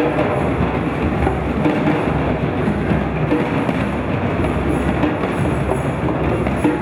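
A large group of children playing hand drums together (djembes, metal goblet drums and frame drums), a dense, steady stream of overlapping hand strokes.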